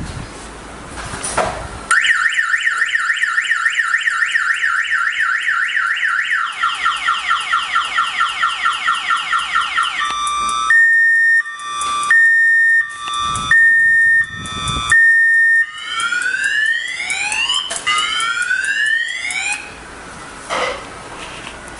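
Electronic multi-tone alarm siren of a motorcycle lock platform going off as a false alarm, just after a knock on the platform. It cycles through a fast warble, slower chirps, four long steady beeps and rising whoops, then stops shortly before the end.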